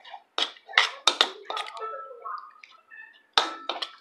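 Tableware at a meal: a few sharp clicks and clinks of a spoon and hands against ceramic bowls, one with a brief ring.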